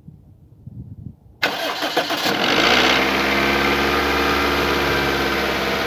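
Toyota 1ZZ-FE 1.8-litre four-cylinder engine cold-started: the starter cranks briefly about a second and a half in, the engine catches, flares up and settles into a steady fast idle.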